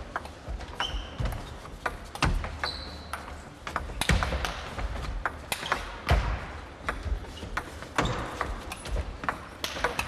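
Table tennis ball being struck back and forth with paddles and bouncing on the table in a long rally: a string of sharp clicks at an uneven pace, roughly one or two a second, echoing in a large hall. Two short high squeaks come in about one and two and a half seconds in.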